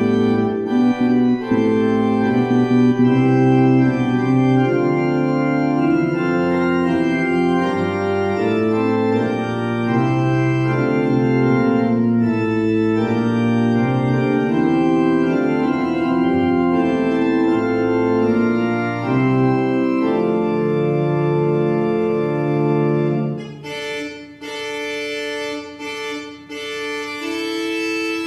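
Organ playing slow, sustained chords. About 23 seconds in the bass drops away and the music becomes quieter and thinner.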